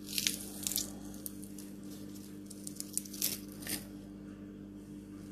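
Garlic cloves being crushed in a hand-held garlic press: short squishing crunches in a few bursts near the start and again about three seconds in.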